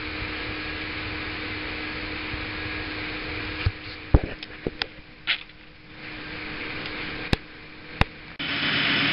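A steady hum with a faint held tone, which drops away a little over a third of the way in. A handful of sharp clicks and knocks follow, and a louder steady noise cuts in suddenly near the end.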